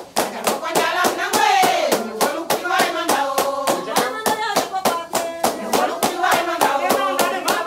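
A group of women singing together over fast, steady hand clapping that keeps time for a circle dance.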